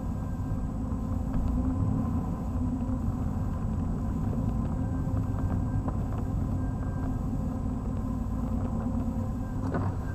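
A Pontiac Fiero's engine running steadily while the car rolls slowly, heard from inside the cabin.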